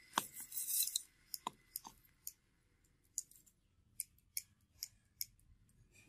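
Curly brass scrap shavings crinkling and clinking as they are handled in and out of a crucible. A dense crinkly rustle near the start gives way to a string of separate light, crisp clicks.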